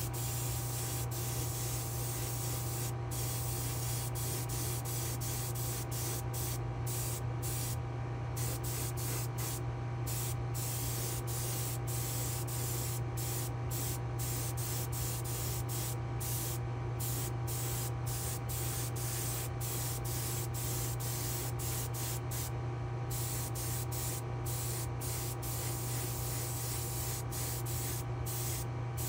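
Gravity-feed airbrush hissing as it sprays paint, the hiss cutting off briefly many times as the trigger is let off and pressed again, over a steady low hum.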